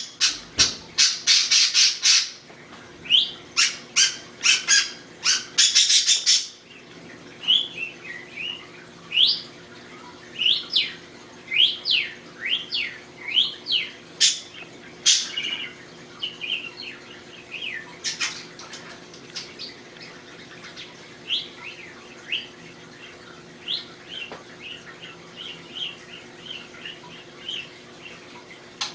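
English budgie (budgerigar) vocalising: rapid runs of raspy pulses in the first six seconds, the fart-like noise it has learned to mimic, then a long stretch of short chirps sweeping up and down in pitch.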